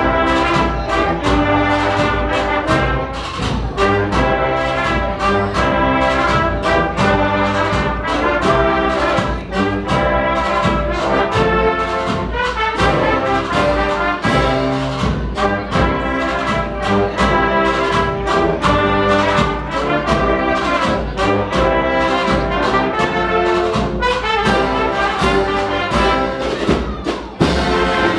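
An agrupación musical, a Spanish processional brass-and-drums band, playing a march: trumpets and trombones carry the melody over a steady drum beat.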